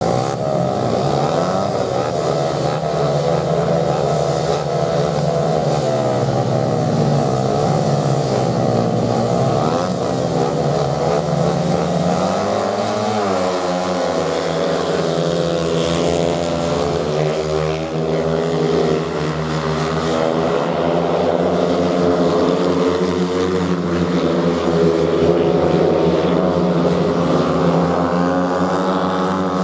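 Several speedway bikes' single-cylinder methanol engines revving hard at the start line, their pitches wavering up and down, then held at full throttle as the bikes race round the track.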